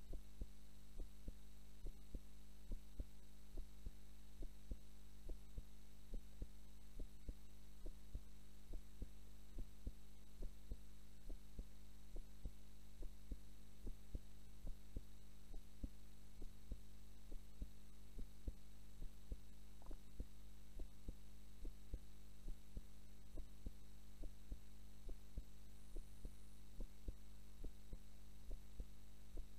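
A woman's heartbeat recorded during a nap, a steady lub-dub repeating roughly once a second. A low steady hum lies underneath.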